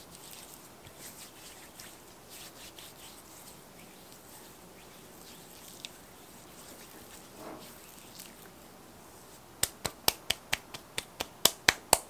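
Soft skin-on-skin rubbing as two hands massage each other, working in cuticle oil. Near the end comes a quick run of about a dozen sharp clicks, about four or five a second, getting louder.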